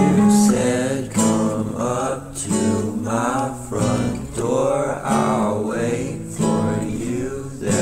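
Background music: a song with strummed acoustic guitar.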